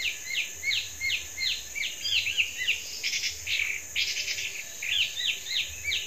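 Tepus babblers calling: a fast, unbroken string of short, high chirps, each sliding downward, several a second. It is the sound of a flock answering the lure call and gathering in.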